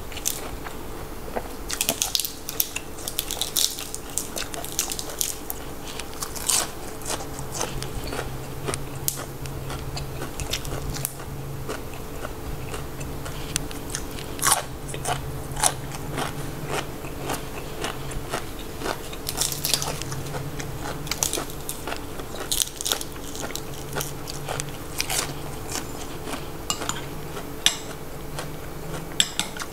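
A person biting and chewing crunchy raw green vegetables, crisp crunches coming in clusters with wetter chewing between.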